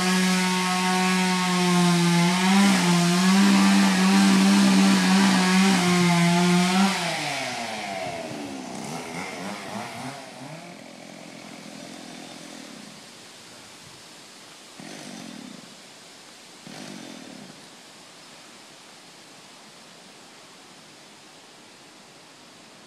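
Chainsaw running at high revs for about seven seconds, the pitch holding steady with brief dips. The revs then drop away and the sound fades out.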